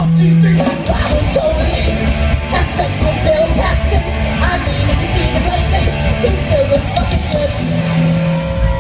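Live hard rock band playing loud: electric guitar, bass guitar and drums, with a voice singing over them.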